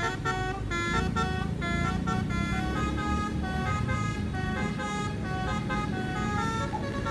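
Twelve-trumpet basuri (telolet) air horn playing a melody: a quick run of held notes, a new pitch every fraction of a second. A steady low engine rumble runs underneath.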